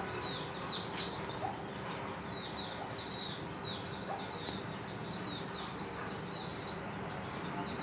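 Small birds chirping continuously: quick, high, down-sliding chirps several times a second over a steady low background.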